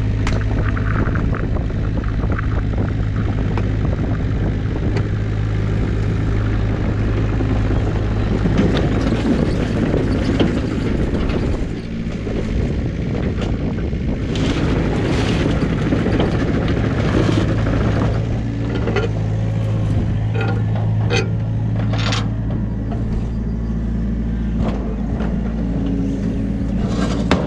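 New Holland Kobelco mini excavator's diesel engine running steadily with a low drone while the machine tracks onto a trailer over aluminium ramps. From about halfway on, sharp metallic clanks and knocks come through, several of them close together near the end as an aluminium loading ramp is handled.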